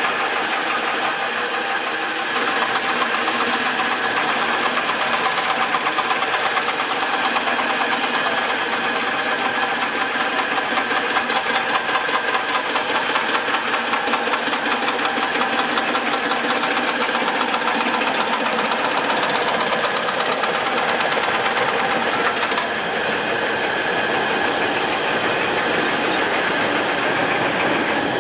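Narrow-gauge steam locomotives: a steady hiss of steam, with a fast, even exhaust beat from about two seconds in that eases off near the end.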